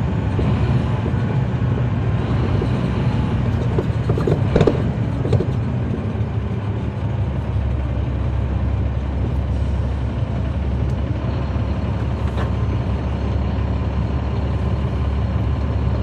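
Caterpillar C13 inline-six diesel of a 2009 NABI 40-SFW transit bus running, heard from the back seat inside the bus, a steady low drone. Some rattles and clicks come in about four to five seconds in, and the drone settles lower and steadier from about seven seconds in.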